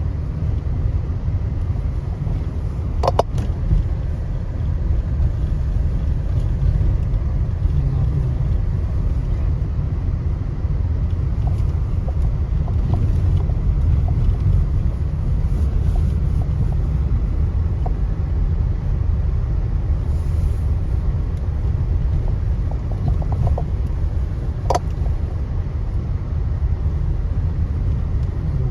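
Steady low rumble of road and engine noise inside a moving car, with a sharp click about three seconds in and another a few seconds before the end.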